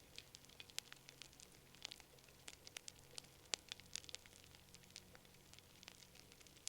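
Wood fire crackling: irregular sharp pops and snaps over a faint hiss, with one louder pop about three and a half seconds in.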